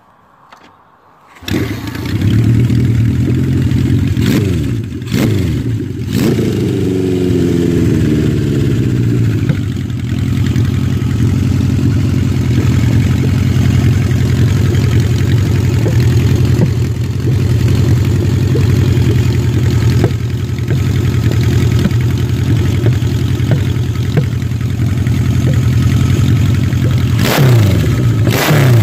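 Honda CB750 Four's air-cooled inline-four engine, breathing through four carburettors with open velocity stacks, fires up about a second and a half in. Its revs swing up and down over the next several seconds before it settles into a steady idle, and it is revved again near the end.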